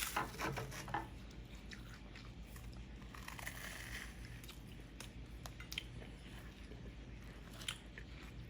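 A toddler chewing food: soft, scattered smacks and clicks from the mouth over a low steady hum.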